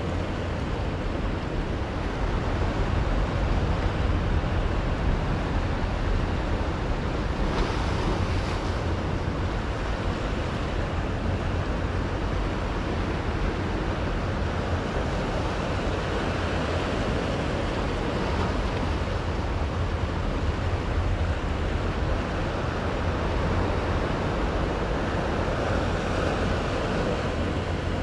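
Small waves breaking and washing over a rock shelf, swelling up every several seconds, with wind rumbling on the microphone underneath.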